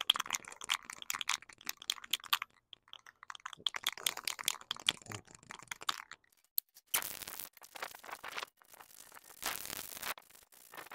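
Aerosol can of primer being shaken, its mixing ball rattling quickly, with a short pause partway. Then come three short bursts of spray hiss, each about half a second long.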